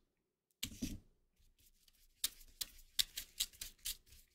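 Angled paintbrush scrubbing watercolour across paper: one stroke about half a second in, then a quick run of about ten short strokes from about two seconds in.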